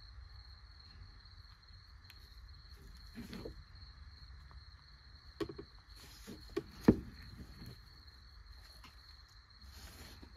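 Gloved hands handling a toy tractor wheel, a rubber tyre on a plastic rim. There are soft glove rustles and a few light knocks and clicks, the sharpest about seven seconds in, over a faint steady high tone.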